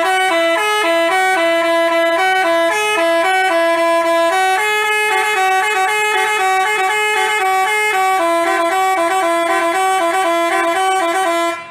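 Basuri telolet musical bus horn playing a melody of stepped notes in two voices for about eleven and a half seconds, cutting in and out sharply.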